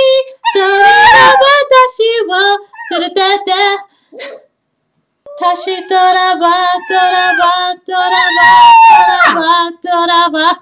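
A woman singing high notes, with a Chihuahua puppy howling along. There is a short break about four seconds in.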